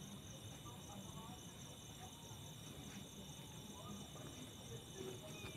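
Crickets and other night insects chirring in a steady, high-pitched chorus, one strand of it pulsing rapidly.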